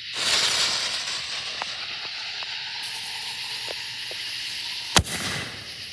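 Fuse of a Black Cat Lock and Load reloadable artillery shell hissing as it burns for about five seconds, then a single sharp bang near the end as the lift charge fires the shell out of the mortar tube.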